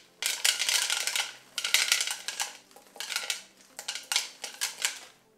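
Chocolate chips shaken out of a plastic packet into a glass mixing bowl of cookie dough, the packet crinkling and the chips rattling in several short bursts.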